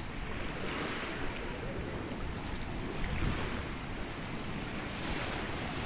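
Sea waves washing over rocks in a continuous surf hiss that swells a few times, with wind rumbling on the microphone.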